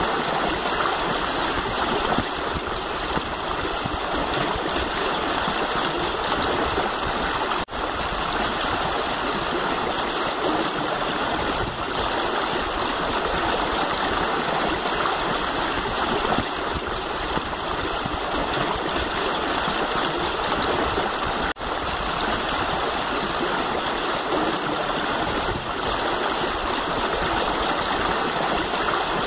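Shallow river water rushing steadily over rocks and rapids, cutting out for an instant twice.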